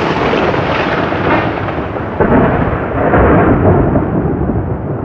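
Rolling thunder sound effect: a loud, sustained rumble that swells again about two seconds in and then slowly dies away.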